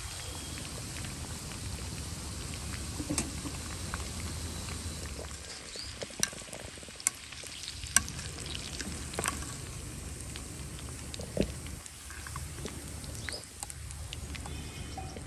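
Chicken pakodi deep-frying in hot oil in a kadai: a steady sizzle, broken by a few sharp clinks as a wire spider strainer stirs the pieces and lifts them from the pan.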